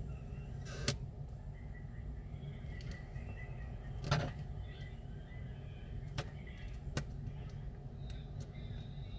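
Several sharp clicks over a steady low hum, the loudest about a second in and about four seconds in, with two fainter ones later.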